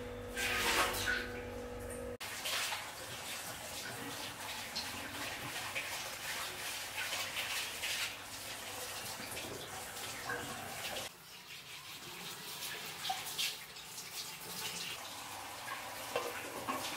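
Egg curry gravy bubbling and crackling as it simmers in a pan, with eggs poaching in it.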